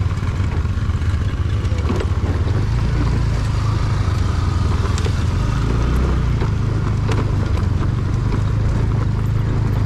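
Motorcycle engine running steadily while riding, a constant low drone with a few faint clicks.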